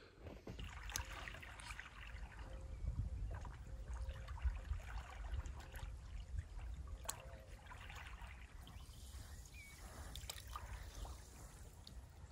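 Small waves lapping gently on a sandy shore, with soft trickling and splashing of water at the edge.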